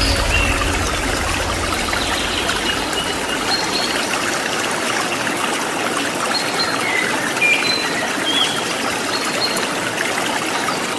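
Steady rush of a waterfall's falling water, with small birds giving short, scattered chirps and whistles over it.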